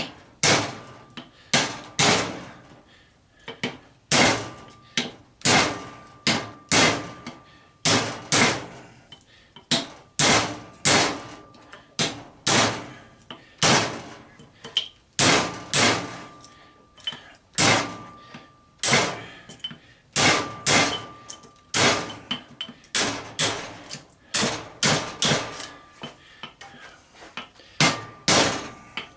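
Hammer blows on a cut-off railroad spike used as a punch, steel on steel, driving the copper winding out of an old golf cart battery charger. Dozens of strikes at about one or two a second, several leaving a short metallic ring.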